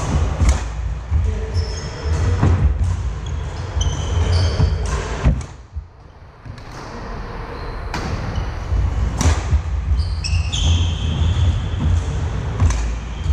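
Badminton rally on a wooden court: sharp racket strikes on the shuttlecock and footfalls, with short high squeaks of shoes on the floor, in a large hall over a steady low rumble. Things go quiet briefly a little before the middle, then the play picks up again.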